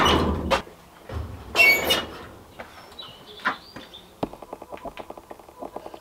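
Up-and-over steel garage door swung open by hand: a loud rattling rumble with a high metal squeal at the start, and a second clunk and rumble about a second and a half in as it reaches the top. Faint rapid ticking follows in the second half.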